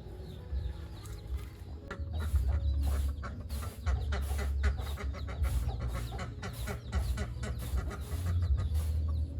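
Chickens clucking, with a dense run of short sharp clicks and taps, several a second, starting about two seconds in, over a steady low rumble.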